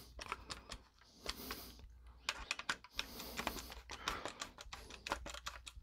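Hand screwdriver driving the mounting screws of a lampholder down into an electrical box: a run of quick, irregular clicks and ticks, with a short pause about two seconds in.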